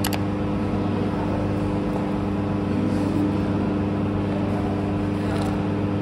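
Electric pottery wheel running, a steady motor hum with a few fixed tones over an even whirring noise.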